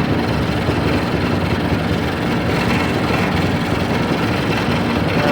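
An engine running steadily at a constant speed, with a low hum.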